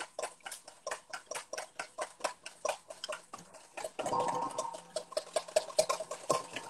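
Wire whisk beating against a glass bowl as hollandaise is whisked, a quick regular clicking about four or five strokes a second. About four seconds in, a busier clatter and hiss joins it.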